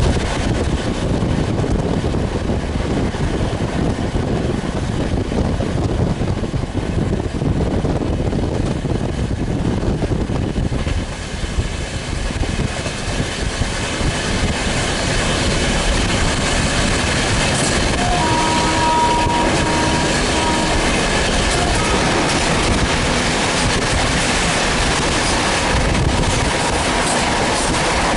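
Train running at speed on the rails, a continuous heavy rumble. About two-thirds of the way in, a horn sounds for about three seconds.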